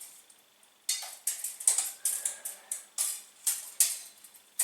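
Clicking of a computer mouse and keyboard during CAD work in SketchUp. After about a second of quiet, short sharp clicks come two to three times a second.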